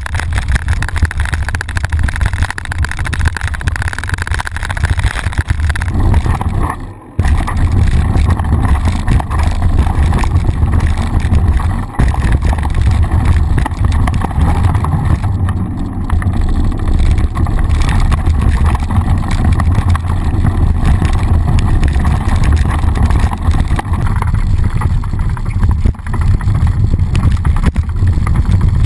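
Mountain bike rolling fast down a dirt trail, heard through a bike-mounted GoPro: steady wind rumble on the microphone mixed with tyre and trail noise, with a brief dip about seven seconds in.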